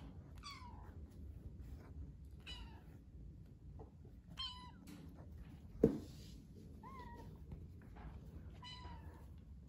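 Kitten meowing: five short meows about two seconds apart, mostly falling in pitch. A single sharp thump just before the middle of the run is the loudest sound.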